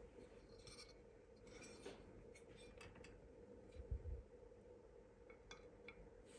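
Faint handling of a diecast model and its packaging: soft rustles and small clicks, with one low thump about four seconds in, over a steady low hum.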